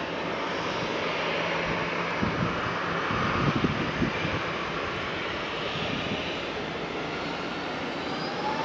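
Twin turbofan jet engines of a Ryanair Boeing 737 running at low thrust as the airliner turns on the runway, a steady rushing hum. Near the end a whine starts to rise.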